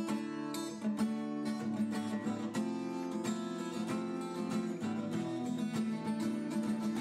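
Background music on guitar: plucked notes in quick succession over held chords, at a steady level.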